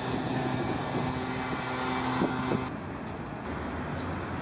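Vehicle engine running steadily while driving, heard from inside the cab as a low hum under road noise, with two short knocks a little over two seconds in. After about two and a half seconds the sound drops to a quieter steady background.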